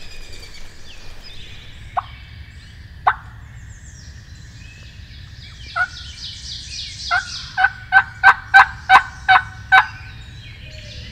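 Wild turkey hen yelping: a few scattered single calls, then a run of about eight loud yelps at roughly three a second near the end. Fainter songbird chirps sound in the background.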